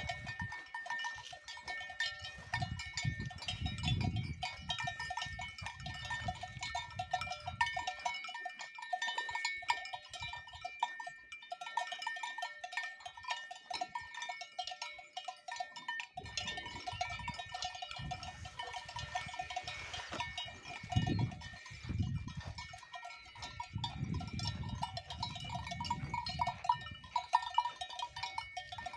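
Cowbells (kelek bells) on grazing Simmental cows clanking irregularly, several bell tones jangling together. Low rumbling noise comes and goes underneath.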